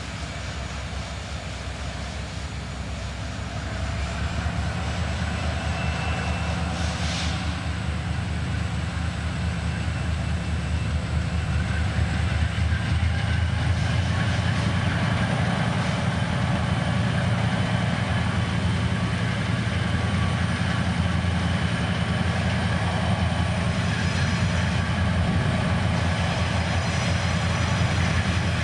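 Freight train's diesel locomotive engines running with a steady low drone that grows louder from about four seconds in and holds strong through the second half, with a faint high whine on top.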